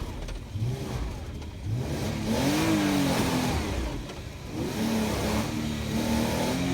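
Car engine revving up and falling back several times as the driver rocks a stuck car back and forth to free it, the transmission under a strain that can burn it up.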